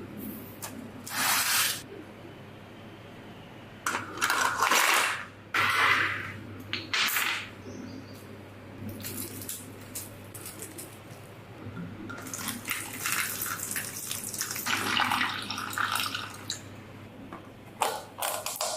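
Repeated short bursts of hissing spray, starting and stopping irregularly, over a steady low hum.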